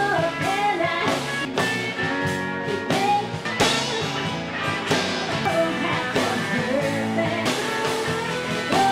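Rock music with a singing voice, guitar and drums, playing steadily.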